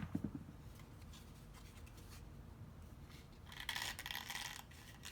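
Cardstock paper petals being handled and rubbed, with a light knock at the start and about a second of dry rustling about three and a half seconds in.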